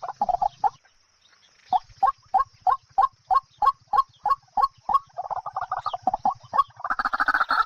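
A fowl clucking: a string of short repeated calls at about three a second, running faster near the middle, with louder calls near the end.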